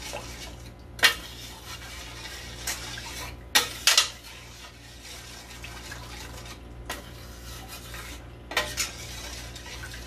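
Metal spoon stirring coconut milk in a stainless steel pan, with sharp clinks of the spoon against the pan: a loud one about a second in, two close together near four seconds, and two more near the end.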